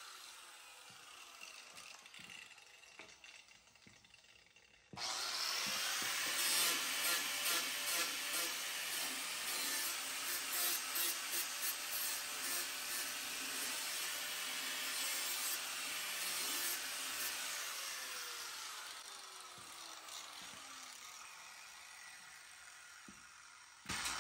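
A power tool switches on about five seconds in and runs at speed with a rough, uneven working noise. It is then released and winds down, its pitch falling over several seconds. A short burst of the tool comes near the end.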